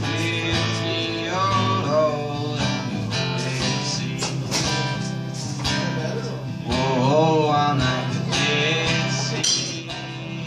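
Acoustic guitar strummed steadily while a man sings, holding long notes that waver in pitch.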